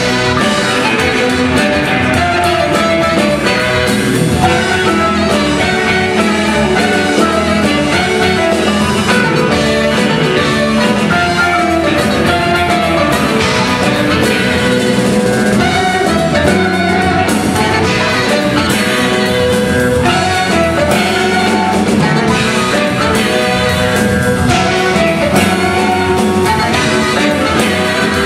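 Live jazz-rock band playing: two saxophones play lines over electric guitar, marimba, bass guitar and drum kit.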